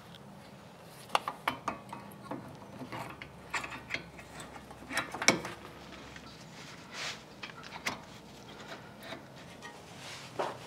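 Scattered metal clicks and clinks as a brake caliper and its pads are handled and fitted onto the caliper bracket over a new brake rotor, the sharpest about a second in and at about five seconds.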